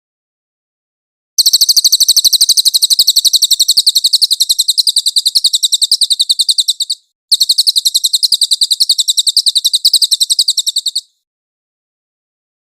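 Cililin bird singing: a very fast, high-pitched trill of rapidly repeated notes lasting about five and a half seconds, a brief break, then a second trill of nearly four seconds.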